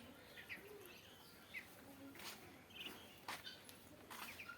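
Faint, scattered chirps from farm birds, with a few sharp clicks in between.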